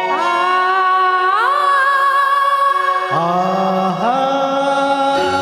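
Opening of a Hindi film song on a karaoke backing track: long held melodic notes that slide up about a second in and drop lower about three seconds in, before stepping up again.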